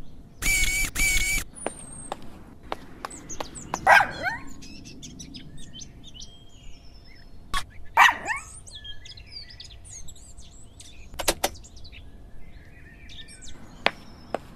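Birds chirping, with a loud buzzing double burst about half a second in and two loud downward-sliding cries about four seconds apart.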